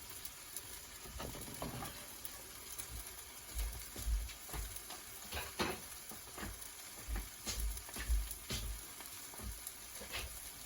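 Shrimp and egg frying in a pan over heat that has been turned down, a soft steady sizzle, with scattered clicks and scrapes of a utensil against the pan.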